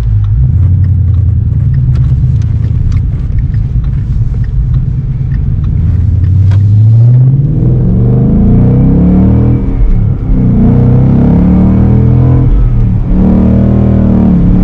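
2017 Mustang GT's 5.0-litre V8 running through a new MBRP Race catback exhaust: a steady low rumble at first, then the revs climb about halfway through, dip briefly at gear changes and climb again.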